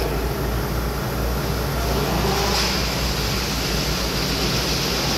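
Steady background rumble and hiss, with a constant low hum and no distinct knocks or clicks.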